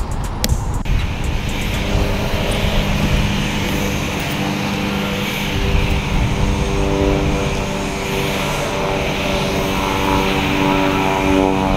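Steady loud rushing machine noise, with a few sharp clicks in the first second and, from about two seconds in, steady tones that change pitch in steps.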